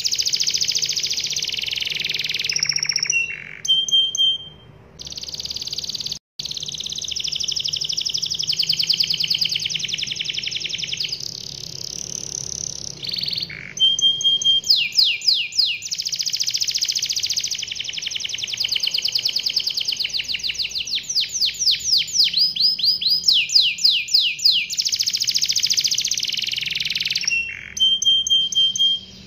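Yellow domestic canary singing a long rolling song of fast trills and rapidly repeated rising notes, broken by short pauses about four and thirteen seconds in.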